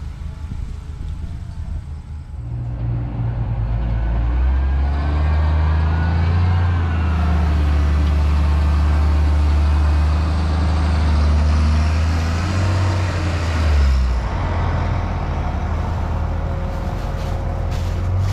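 Heavy diesel farm machinery running: a John Deere tractor hauling a litter spreader, and a John Deere 644K wheel loader's engine. The drone grows louder a few seconds in and holds steady, with a brief shift in pitch about two-thirds of the way through.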